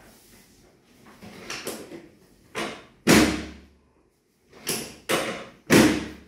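A series of sharp clunks and thuds from a padded chiropractic treatment table as the chiropractor thrusts down on the patient's lower back. The loudest comes about three seconds in and another just before the end.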